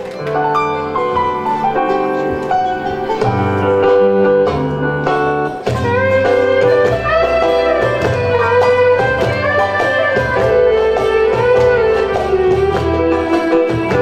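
Turkish art music ensemble playing the instrumental introduction of a song in makam Rast: a bowed violin melody over plucked strings, with no singing yet.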